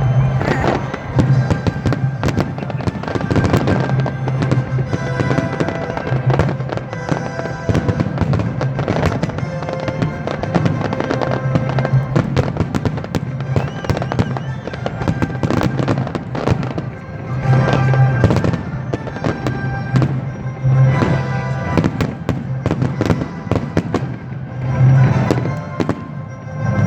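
Fireworks going off in quick succession, a dense run of bangs, pops and crackles with no break, with music playing underneath.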